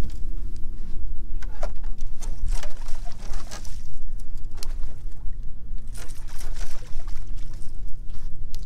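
Water splashing in irregular bursts as a hooked small striped bass thrashes at the boat's side and is landed, over a steady low rumble with a faint hum.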